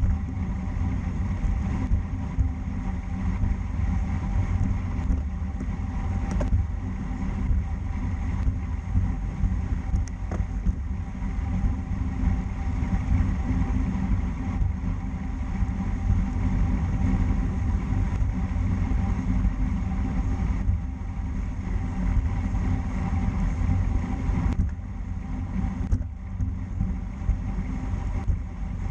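Steady low wind rumble across the microphone of a camera riding on a road bicycle, with a fainter hiss above it.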